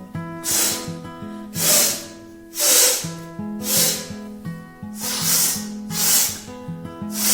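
Person forcefully blowing air out through the nose in short, hard blasts, about once a second, over background music with a plucked guitar.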